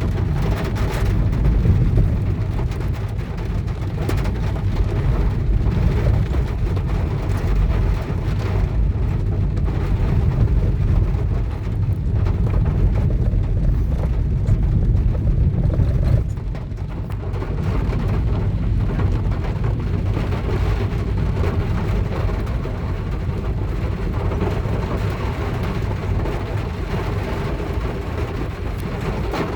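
Heavy rain and hail drumming steadily on a car, a dense patter of many small hits over a deep rumble; it eases a little about halfway through.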